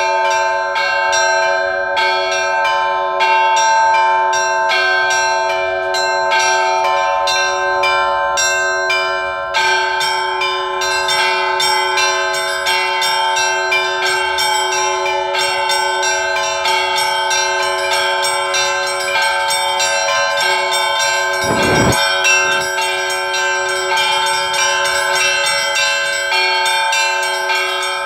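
A set of Russian Orthodox church bells rung by a bell ringer: quick, rhythmic strikes on the small high bells over the steady hum of the larger bells, the pattern growing denser about a third of the way in. One heavier low thud sounds about three-quarters of the way through.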